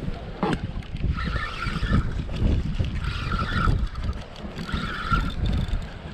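Wind buffeting the microphone, with a short higher-pitched sound repeating about every two seconds.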